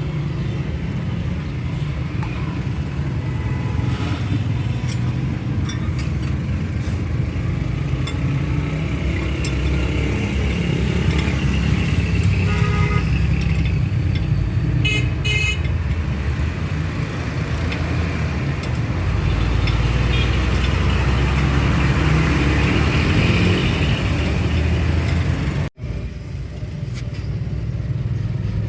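Heavy truck engine running with a steady low rumble, with two short horn toots near the middle. The engine gets louder a few seconds later and cuts out for an instant near the end.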